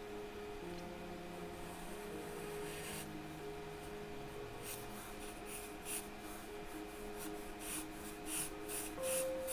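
Charcoal pencil scratching across drawing paper in short sketching strokes, sparse at first, then coming about two a second through the second half, over soft steady background music.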